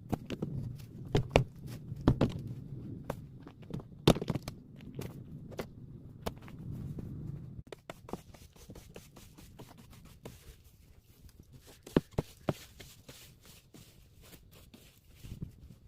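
Scattered knocks, clicks and scrapes of hands-on work around a jet ski, with footsteps, over a low rumble that stops about halfway through.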